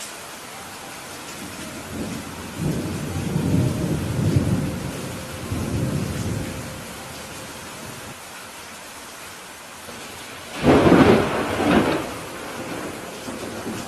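Steady rain falling on a roof during a thunderstorm. Thunder rumbles low and rolling for several seconds, and a louder, sharper thunderclap comes near the end.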